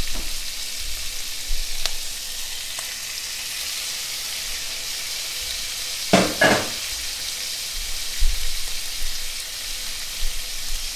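Shrimp searing in a hot cast-iron skillet with a little olive oil: a steady, hissing sizzle. Two brief louder knocks sound about six seconds in.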